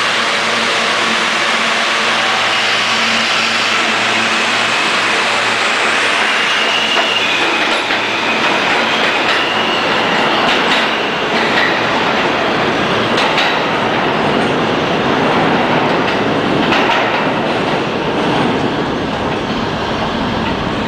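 New York City subway train running through the station: a steady rumble of wheels on rail, with a thin high whine heard between about six and eleven seconds in.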